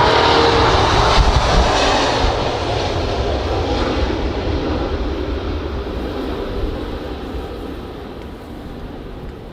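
Airbus A380's four jet engines at takeoff thrust, a loud rumble that fades steadily over several seconds as the airliner moves away.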